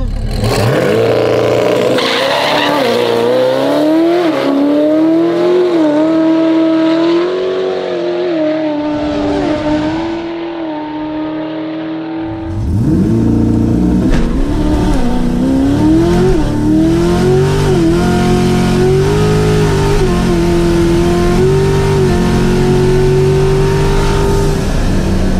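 C8 Corvette Stingray's twin-turbo pushrod V8 at full throttle on a drag-strip pass, the engine pitch climbing through each gear and dropping at each upshift.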